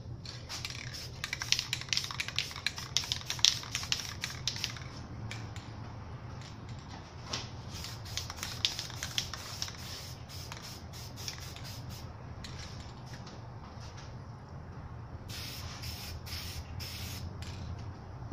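Aerosol spray paint cans hissing in rapid, short bursts. The bursts are dense at first, thin out, stop for a few seconds, and come back in a quick cluster near the end.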